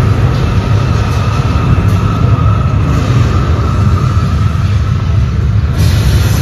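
Earthquake simulation show's loud, steady low rumble of shaking ground, played over the theatre's sound system, with a faint high tone held above it.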